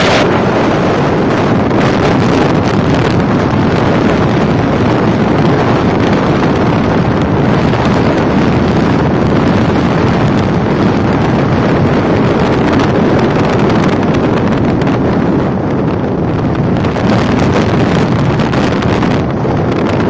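Strong cyclone wind buffeting the microphone: a loud, steady rush of wind noise that never lets up.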